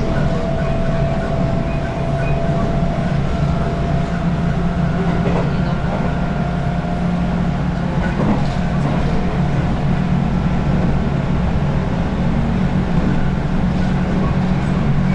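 JR West 221 series electric train heard from inside the carriage while running, a steady rumble of wheels and running gear on the track. A thin steady whine sits over it and fades out about halfway through.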